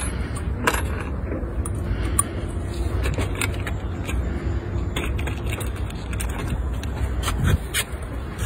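Small clicks and clinks of little parts being picked through in a plastic box, over a steady low rumble.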